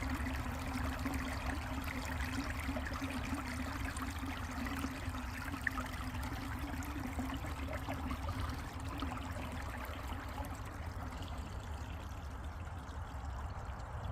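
Mountain creek water running steadily over rocks, a continuous rushing and trickling.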